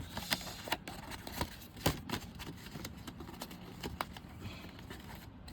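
Scattered clicks and knocks of a cardboard phone box being handled as its lid is pressed down and refuses to close, the loudest knock about two seconds in.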